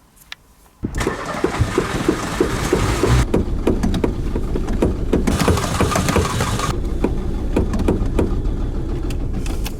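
Seat Cordoba engine being cranked by its starter motor on a cold start, in a steady even beat of about four to five compression strokes a second without catching: the car cranks but won't start. The cranking begins about a second in and stops just before the end.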